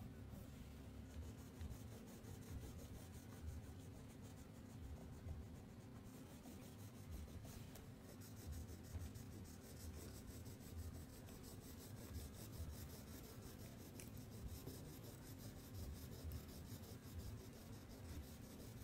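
Crayon rubbing back and forth on paper as a drawing is coloured in: a faint, continuous scratchy rubbing.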